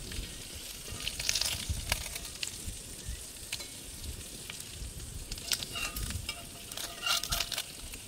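Streaky bacon sizzling in a cast iron frying pan, with metal tongs clicking and scraping against the pan as the strips are turned over.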